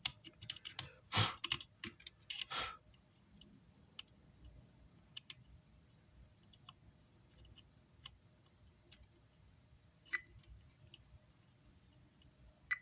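Small clicks and taps from multimeter probes and handling on an amplifier circuit board while components are being tested. A dense clatter of clicks runs through the first few seconds, then scattered faint ticks follow, with sharper clicks at about ten seconds and near the end.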